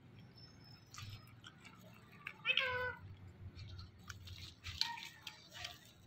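Indian ringneck parakeet giving one short pitched call, cat-like, about two and a half seconds in, with a few faint clicks around it.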